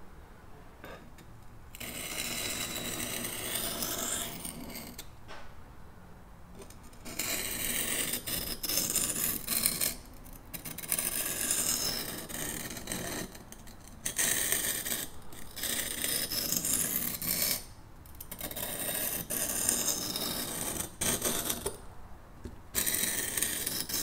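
Steel knife blade being stroked back and forth across a water-soaked whetstone's coarse side, a gritty scraping in runs of strokes with short pauses between them.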